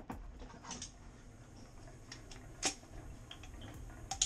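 A few scattered light clicks and taps over faint room tone, with one sharper tap about two and a half seconds in and a small cluster of clicks near the end.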